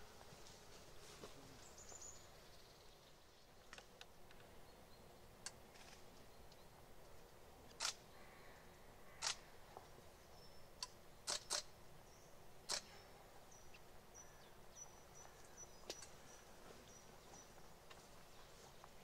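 Near silence outdoors, broken by half a dozen sharp clicks about eight to thirteen seconds in, two of them in quick succession. A faint high, broken peeping follows later on.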